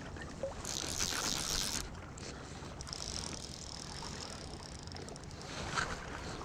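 Shallow river water running past a wading angler, with a steady low rumble and hiss, and a short rush of noise about a second in.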